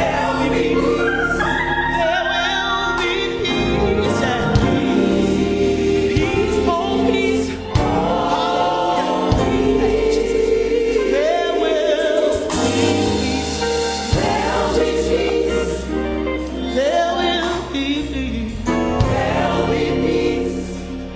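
Gospel song with a choir singing over bass and backing instruments.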